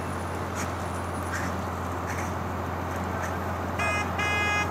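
Steady rushing noise of a hose line spraying water onto a burning car's engine compartment over a low steady hum. Near the end, two short horn-like tones sound in quick succession.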